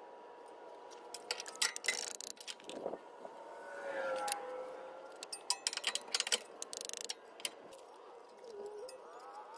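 Scattered metallic clicks and clinks of parts and tools being handled, with a quick rattling run of ticks about seven seconds in. A brief wavering tone rises and falls about four seconds in.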